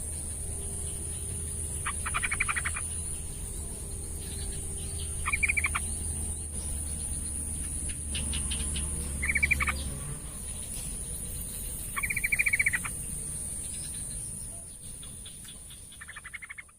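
Yellow-vented bulbul (trucukan) calling: four short bursts of rapid chattering notes, a few seconds apart, over a steady high background whine. The sound fades out near the end.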